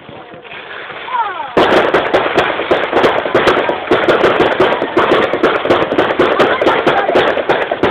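Fireworks going off in a rapid, continuous barrage of bangs and crackles that starts about a second and a half in.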